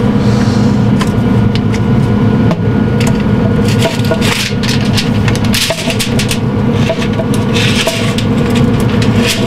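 A metal spatula scraping and clicking on steel grill grates as a smoked salmon fillet is worked loose and lifted off, with two louder scrapes about four and eight seconds in. A steady low hum runs underneath.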